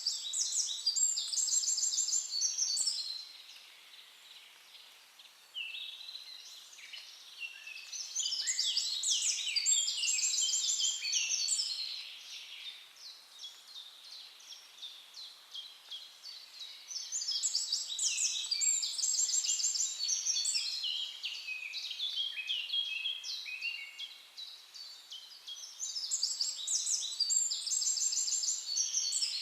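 A songbird singing long, high phrases of rapid trilled notes, repeated four times with short pauses between.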